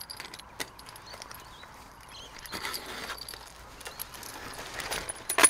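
Old-style chain wire strainer being fitted onto a fence wire: its steel clamp and hanging chain give scattered small clicks and rattles, with a sharp metallic clack just before the end.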